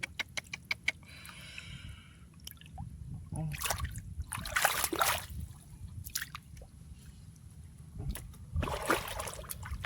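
Splashing and squelching in shallow muddy water, in several bursts, as fish are grabbed by hand.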